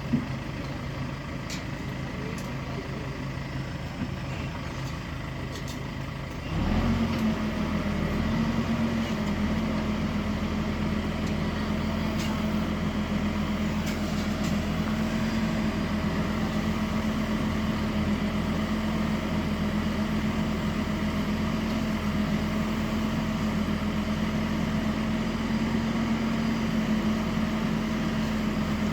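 Heavy diesel engine running at low speed, then revved up sharply about six and a half seconds in and held at a steady higher speed.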